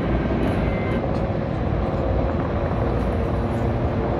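Two low-flying helicopters passing overhead, their rotors and engines making a steady, unbroken noise.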